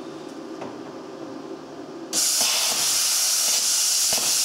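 Plasma cutter torch starting about two seconds in: a sudden loud, steady hiss of compressed air and cutting arc, over a low machine hum.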